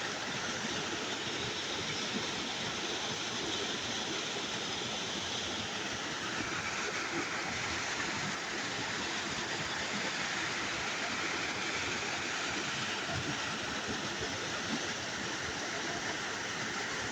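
River water rushing and flowing steadily, an even hiss with no break.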